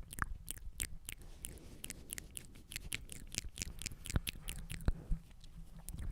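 Close-miked wet mouth sounds: an irregular run of tongue clicks and lip smacks, several a second.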